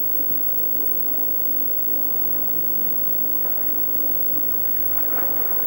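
A steady low hum over a rough background wash, with a short louder burst about five seconds in.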